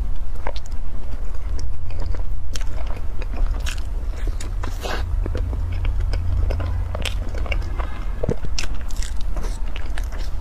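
Close-up eating sounds of a cream-filled bread roll coated in meat floss: soft bites, chewing and small crackling mouth clicks, over a steady low hum.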